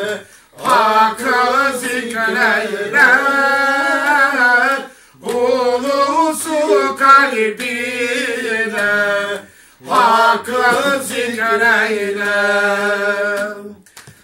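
A man singing a devotional chant unaccompanied, in long drawn-out phrases that waver in pitch, with a short pause for breath every four to five seconds.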